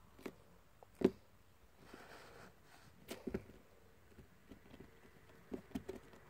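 Slime being handled on a tabletop: a scattering of short, soft taps and squelches, the loudest about a second in, with clusters around the middle and near the end.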